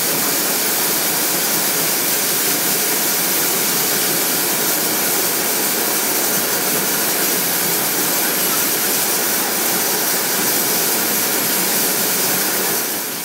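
Steady, loud hiss of steam venting from Pere Marquette 1225, a 2-8-4 Berkshire steam locomotive, standing still; the hiss drops off a little at the very end.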